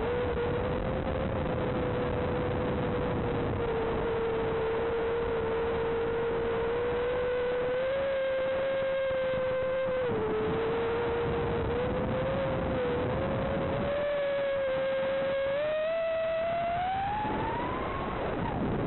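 Electric motors and propellers of a Rekon 5 FPV drone whining at a steady pitch that wavers slightly while cruising. Near the end the pitch climbs sharply as the throttle is pushed up for a climb, then drops back.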